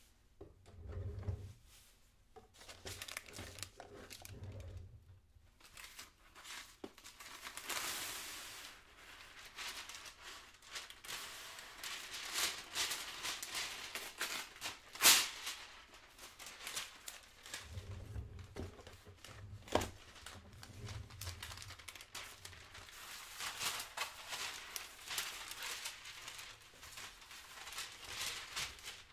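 Kitchen handling sounds: irregular crinkling and rustling, as of packaging being handled, with scattered clicks and a few low thuds. One sharp click about halfway through is the loudest sound.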